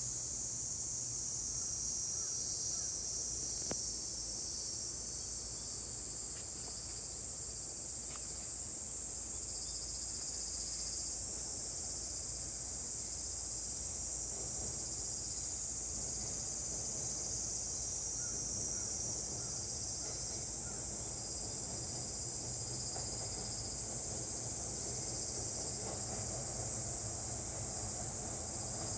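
Steady high-pitched drone of a summer insect chorus, with a faint low rumble underneath from an E231-series electric train running across a steel bridge far below, swelling slightly near the end.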